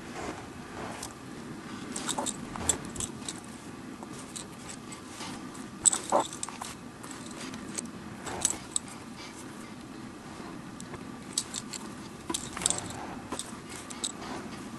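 Hand-stitching a tear in the palm of a leather Mizuno Global Elite junior baseball glove: scattered clicks, rustles and scrapes as the leather is handled and a needle and thread are pulled through it. A steady low hum sits underneath.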